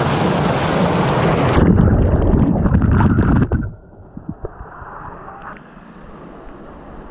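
Loud, steady rushing noise that drops away suddenly about three and a half seconds in, leaving a much quieter hiss with a few light knocks.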